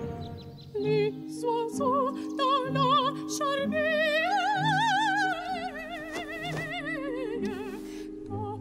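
A high operatic voice sings a wordless melody with wide vibrato, over soft sustained accompaniment. It starts in short phrases about a second in, swells into one long note that rises and then sinks, and then returns to short phrases near the end.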